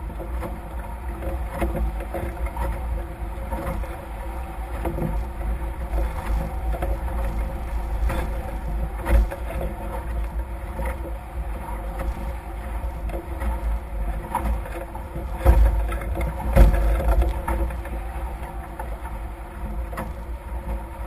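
Wind buffeting the microphone and water rushing past the hulls of a Nacra F18 catamaran sailing at speed. It is a steady noisy rumble, with a few louder thumps of gusts or hull slaps, the strongest about two-thirds of the way in.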